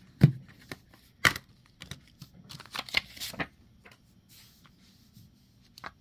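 A plastic Blu-ray case being handled and opened: a few sharp plastic clicks and snaps, the loudest just after the start, with a stretch of rustling in the middle.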